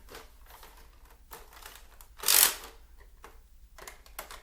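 Handling noise from plastic toy blasters: a few light clicks and knocks, with one louder, short rustling burst about two seconds in.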